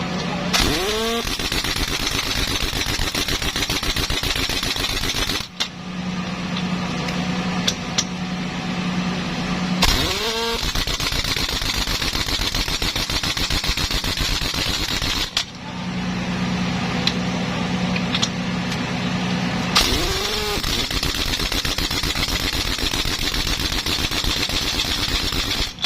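Pneumatic impact wrench working the truck's wheel lug nuts in three bursts of about five seconds each, at the start, about ten seconds in and about twenty seconds in. Each burst opens with a rising whine as the air motor spins up, then goes into rapid hammering. A steady low hum fills the pauses between bursts.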